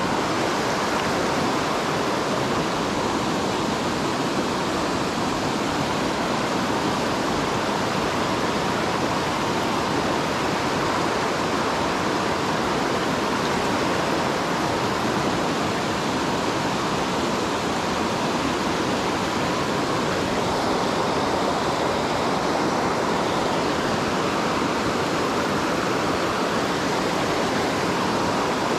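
Mountain stream rushing over rocks and small cascades at close range: a loud, steady, unbroken rush of whitewater.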